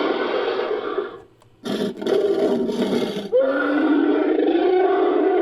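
Created Majungasaurus roar sound effects built from layered animal and monster sounds. One roar ends about a second in, shorter calls follow after a brief gap, and one long roar starts about the middle.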